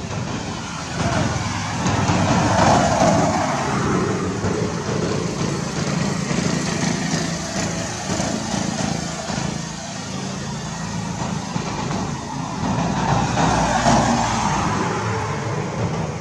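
Road traffic noise: a steady rumble of passing vehicles that swells twice, about three seconds in and again near the end, as vehicles go by.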